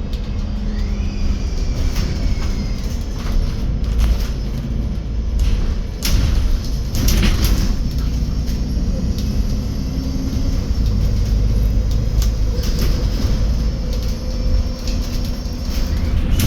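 Interior ride noise of a MAN Lion's City 12 EfficientHybrid CNG city bus under way: a steady low engine and driveline rumble with scattered rattles and knocks from the body. A faint high whine glides down about a second in.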